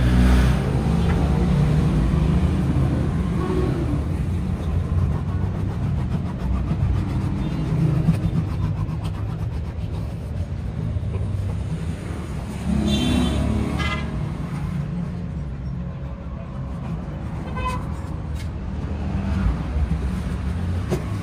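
Steady low rumble of motor traffic running nearby.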